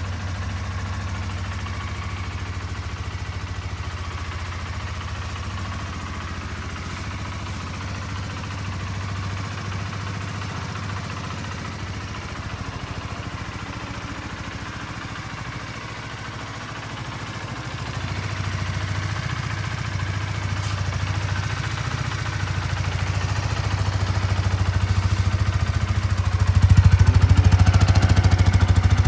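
Honda CBR125R's single-cylinder four-stroke engine idling steadily, growing louder through the second half and stepping up again near the end.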